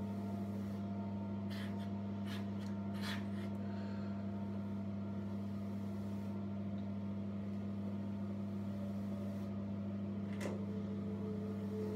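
A few soft swishes of a hairbrush drawn through long, thick hair, three close together near the start and one more near the end, over a steady low electrical hum.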